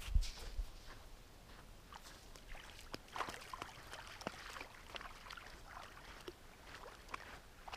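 Small waves lapping at a gravel lakeshore, with scattered light clicks and trickles among the pebbles. A brief low thump comes right at the start.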